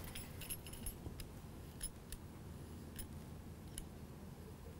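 Faint, short scrapes and ticks of a knife blade shaving curls off a block of dark chocolate, a handful of strokes spread unevenly.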